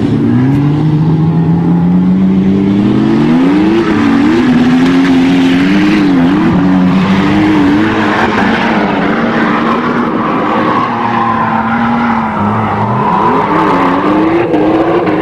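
Toyota Hilux pickup with a swapped-in 2JZ-GTE twin-turbo inline-six running hard under load, its engine pitch climbing repeatedly and dipping between gears, with a sharp drop and fresh climb near the end.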